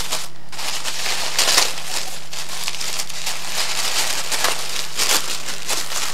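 Tissue paper crinkling and rustling as hands unfold it from a parcel, with louder crackly rustles about a second and a half in and again about five seconds in.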